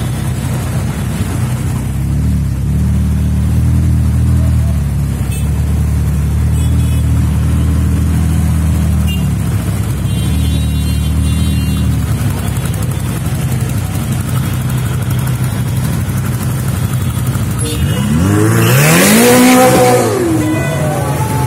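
Engines idling in stopped traffic, a steady low rumble. About eighteen seconds in, a loud rev rises steeply in pitch and falls away over about two seconds as the Ferrari 458 Spider's V8 accelerates off.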